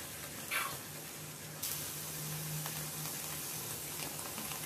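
Rice-flour batter sizzling as it is ladled into the cups of a hot clay pitha mould, a steady hiss that turns brighter and a little louder about one and a half seconds in. A short scrape sounds about half a second in.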